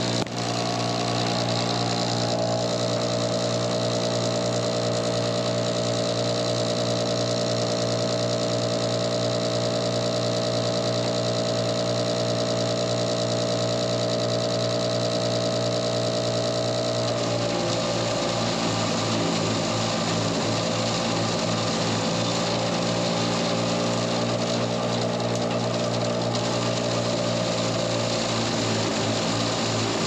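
Farm tractor running a silage blower through its PTO shaft, a loud, steady mechanical drone with a fast rattle as chopped corn silage is blown up the silo fill pipe. About seventeen seconds in, the machinery's sound shifts and drops a little in pitch.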